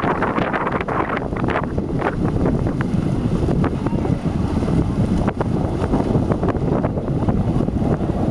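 Wind buffeting the microphone: a steady low rumble, with a few short splashes from wading through shallow water.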